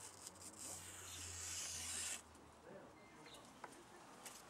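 A freshly sharpened knife blade drawn through a sheet of paper as a sharpness test: a dry, hissing slice about a second and a half long that cuts off sharply just after two seconds in. A few faint paper ticks follow.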